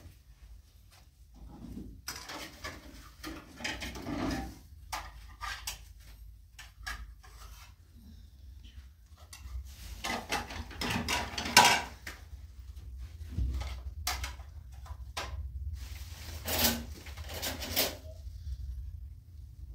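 A spoon clinking and scraping against a metal cooking pan, with scattered irregular knocks and rustling as food is taken from the pan.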